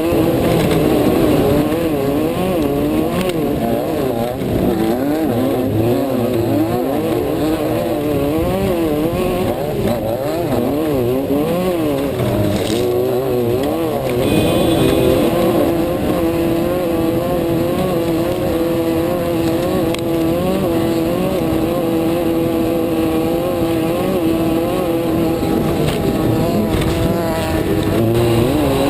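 Off-road race car's engine heard from inside the car, revs rising and falling quickly over and over for about the first half, then holding one steady note at a constant pace.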